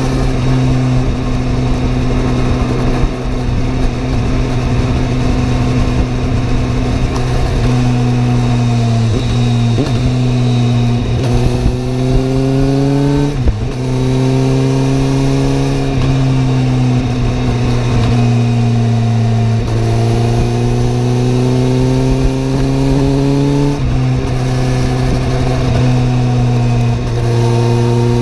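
Suzuki GSR750's inline-four engine and exhaust running under way, the engine note rising and falling with the throttle. The pitch steps abruptly a few times as gears are changed.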